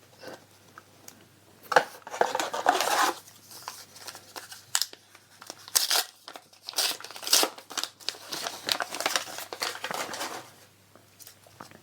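Foil trading-card booster pack being opened: irregular crinkling and rustling of the foil wrapper, with short crackles, over most of the stretch.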